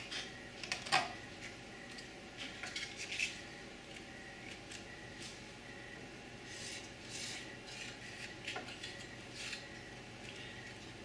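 Light clicks, taps and rubbing of thin wooden pieces being handled and pressed together into a small tray, with a few sharper taps in the first second and soft scraping later on.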